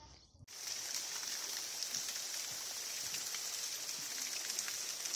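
Small waterfall: thin streams of water falling and splashing down a rock face, a steady hiss with fine patter. It starts abruptly about half a second in.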